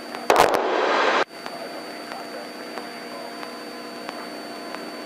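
Light single-engine airplane's engine droning steadily as heard through the cockpit intercom. About a third of a second in, a loud burst of static hiss comes in suddenly and cuts off sharply about a second later.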